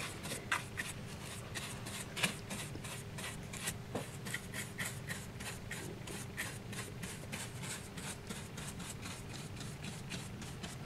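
A soft, fine-bristled brush sweeping dust across a model railway platform: a quick run of light, scratchy brush strokes, several a second.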